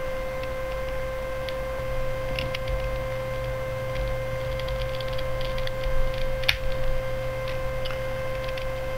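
Small plastic clicks and ticks as the pieces of a 2x2x3 twisty puzzle are fitted back together by hand. One sharper click comes about six and a half seconds in. A steady electrical hum runs underneath.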